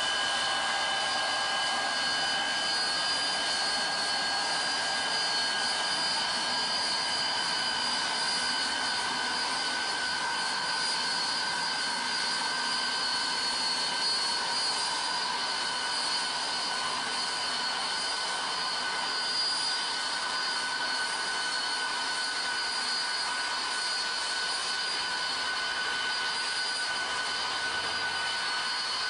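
Rail yard track snow blower running and blasting snow off the tracks: a steady high whine over a rush of blown air.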